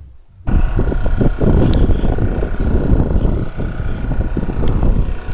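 A fishing boat's engine running steadily, with wind buffeting the microphone; it starts abruptly about half a second in.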